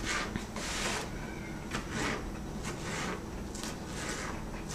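Kitchen knife dicing tomato on a plastic cutting board: a series of irregular cutting strokes and scrapes against the board.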